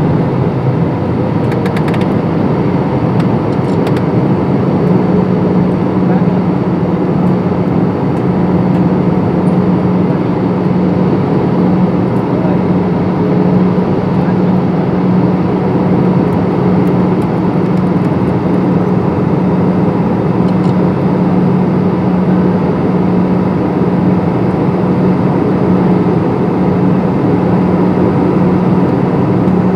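Airliner cabin noise: the steady roar of the jet engines and the airflow over the fuselage, with a constant low hum.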